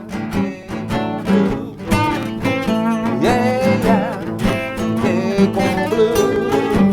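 Acoustic blues played as an instrumental passage: strummed acoustic guitar under a lead line of bending, wavering notes.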